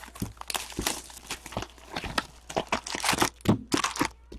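A 2015-16 Upper Deck Series 2 hockey card retail box being torn open by hand: a quick run of irregular crinkling, tearing and crackling of cardboard and wrapping.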